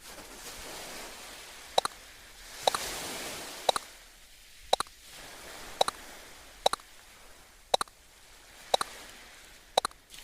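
Sharp ringing ticks about once a second, a few of them doubled, over a soft hiss that swells and fades.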